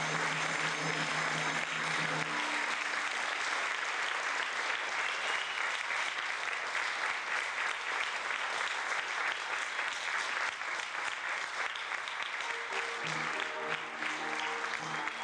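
Theatre audience applauding steadily. The accompaniment's final held chord dies away in the first two seconds, and about three seconds before the end the music starts up again under the clapping.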